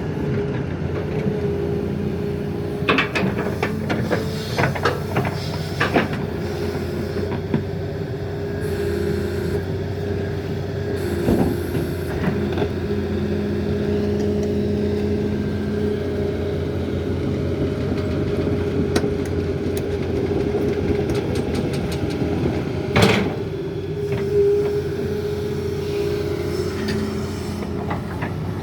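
Heavy diesel engine running steadily, with a cluster of metal clanks and knocks a few seconds in and one sharp knock about 23 seconds in.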